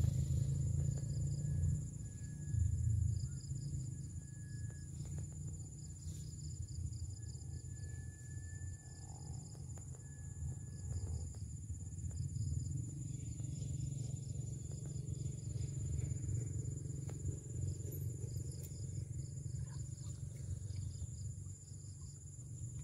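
Steady chorus of insects: a constant high whine with rows of pulsing chirps, over a low rumble.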